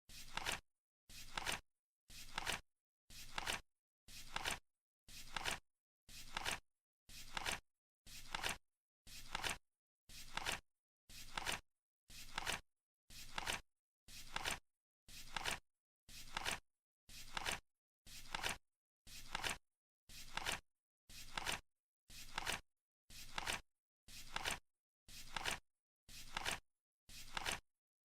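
Flip-clock countdown ticking: a short swish ending in a sharp click, repeating evenly about once a second as the timer counts down.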